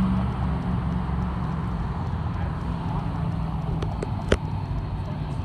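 Low rumble of a pickup truck's engine as it drives off down the street, easing a little at first and then holding steady. A sharp click about four seconds in.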